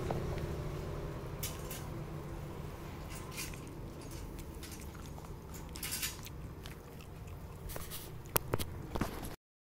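Faint eating and handling sounds: a few soft rustles and clicks of a paper food wrapper over a low steady background, cut off suddenly near the end.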